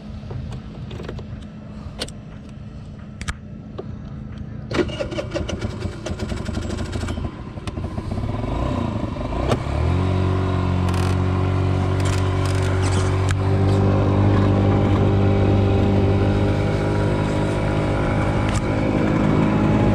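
50cc scooter engine idling, with a few sharp clicks over the first five seconds; about ten seconds in the throttle is opened and the engine runs louder and steadier as the scooter pulls away.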